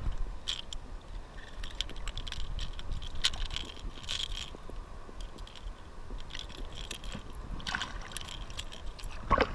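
Shallow surf sloshing around a wading angler, with scattered small clicks and scrapes as a speckled trout is handled and unhooked from a plug. There is a louder knock or splash near the end.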